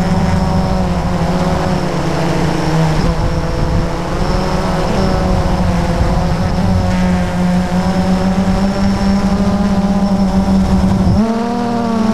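Electric motors and propellers of a radio-controlled drone whining steadily, the pitch drifting as the throttle changes and rising sharply about eleven seconds in, with wind rush on the onboard camera's microphone.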